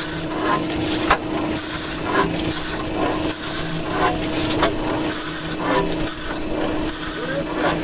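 Antique stationary engines and machinery running with a steady hum, a high squeak repeating about every second and a half, and a few sharp knocks.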